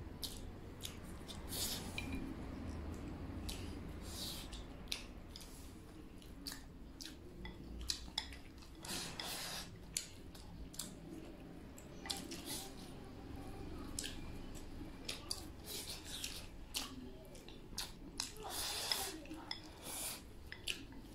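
Wooden chopsticks clicking and scraping against a porcelain bowl as food is shovelled from it into the mouth, with eating noises. Short sharp clicks come irregularly throughout, with longer noisy stretches about nine seconds in and again near the end.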